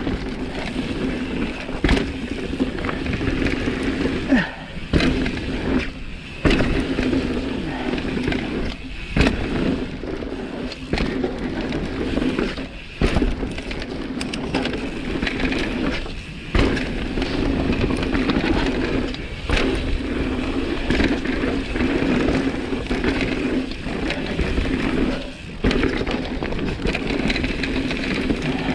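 Mountain bike rolling fast down a dirt forest trail: steady tyre and drivetrain noise with frequent sharp knocks and rattles as the bike hits bumps.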